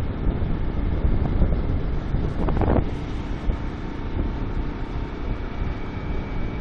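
Strong south wind buffeting the phone's microphone: a loud, ragged low rumble with a brief gust about two and a half seconds in.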